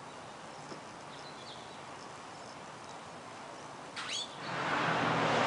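Songbirds calling: faint high chirps about a second in, then two loud, short, sharp calls about four seconds in, the parent birds' "chet" calls at their grounded fledgling. Near the end a rising rush of passing road traffic becomes the loudest sound.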